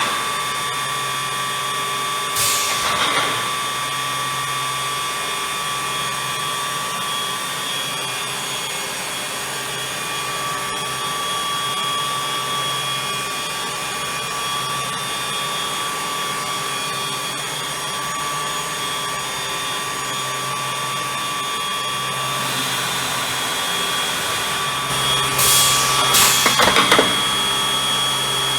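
Bacci FC8CNC eight-head CNC contouring machine running, its cutter spindles giving a steady high whine over a low hum. Brief louder bursts come about three seconds in and twice near the end.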